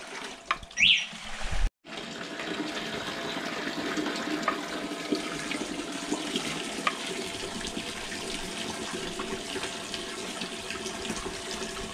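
Soy milk running steadily out of a cloth straining bag of ground soybean slurry into the pot below as the bag is rinsed and squeezed, a continuous splashing trickle. A few handling knocks come just before the pouring starts.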